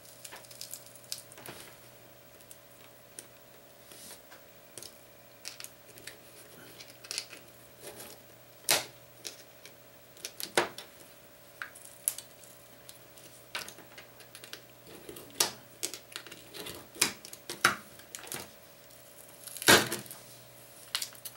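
Irregular small clicks, taps and cracks of a screwdriver and fingers prying a Nexus 4's battery up from its adhesive. The loudest crack comes near the end as the battery comes free.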